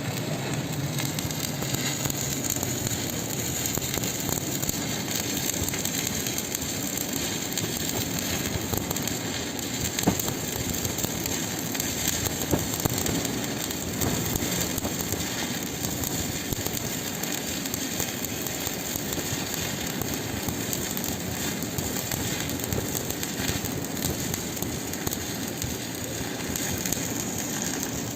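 Electric welding arc laying a hardfacing bead, a steady dense crackle with a few sharper pops.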